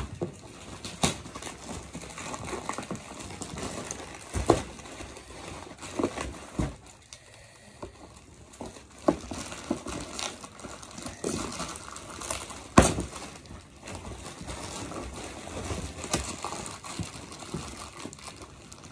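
A plastic mailer bag wrapped in packing tape being torn open and crinkled by hand, with irregular sharp rips and snaps over continuous crinkling. The sharpest snap comes about two-thirds of the way through.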